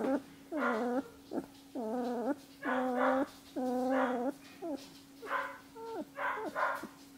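Rough collie puppy whining in a string of short, pitched cries, about one a second, some bending up or down in pitch, over a faint steady hum.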